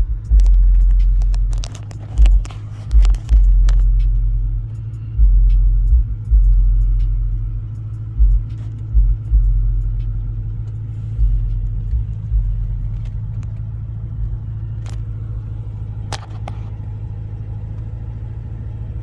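Car engine running with a steady low hum. Heavy low thuds and sharp clicks come and go over the first eight seconds or so, then only the steady running is left.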